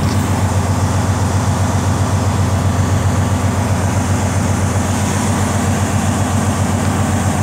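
Detroit Diesel Series 60 14-litre inline-six diesel engine in a Freightliner Columbia idling steadily, a low, even rumble heard from inside the cab.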